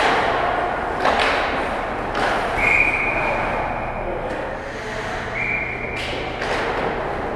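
Ice hockey play in an indoor rink: sharp knocks of sticks, puck and players against the boards, and skates on the ice. Two brief high-pitched steady tones sound in the middle.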